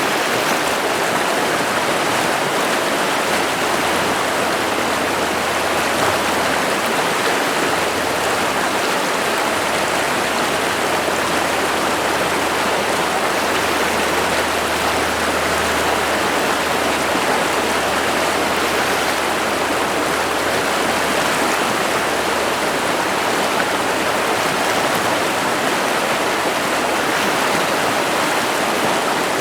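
River water running steadily, a constant, even noise of flowing water with no breaks.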